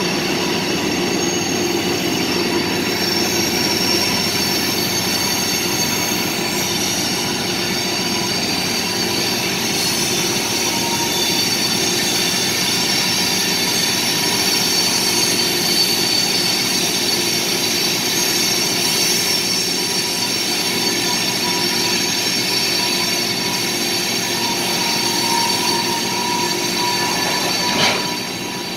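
Covered hopper cars rolling past on steel wheels, with a continuous mix of steady high-pitched squealing tones over the rumble of the train.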